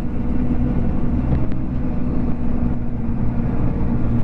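Trail-grooming vehicle's engine running steadily at an even speed.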